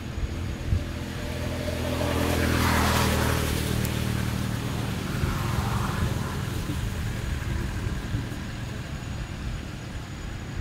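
A motor vehicle driving past: its engine hum builds over the first couple of seconds, is loudest about three seconds in as its pitch drops, then slowly fades.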